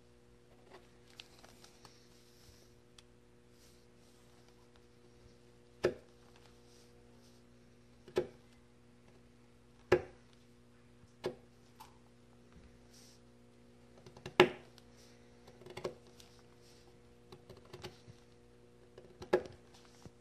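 A small knife clicking and tapping against the tabletop while chestnut scion wood is trimmed, with about seven sharper knocks at irregular intervals and lighter ticks between them. A faint steady hum runs underneath.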